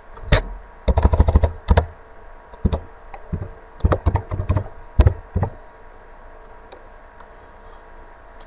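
Computer keyboard keys tapped in quick runs as a word is deleted and another typed, over the first five seconds or so. After that only a faint steady hum remains.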